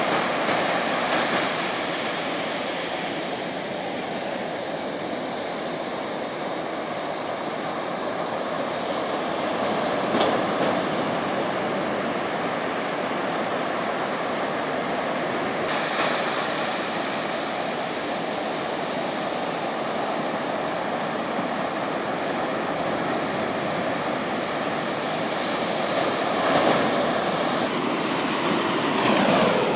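Ocean surf breaking and washing up a sandy beach: a steady rush of water that swells and eases, with a few short bumps.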